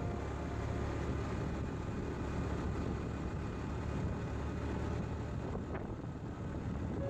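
Motorcycle riding along a road: steady engine and road noise with wind buffeting the microphone, and a faint brief rising tone about five and a half seconds in.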